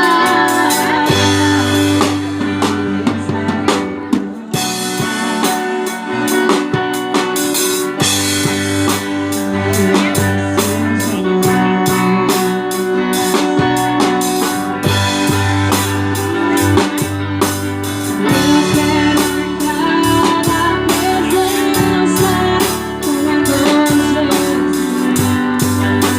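Band playing an instrumental passage without singing: drum kit keeping a steady beat over guitar and low bass notes.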